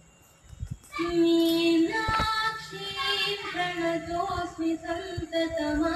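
A woman singing a devotional song in long, held notes, played back through a loudspeaker and starting about a second in. A single sharp knock comes about two seconds in.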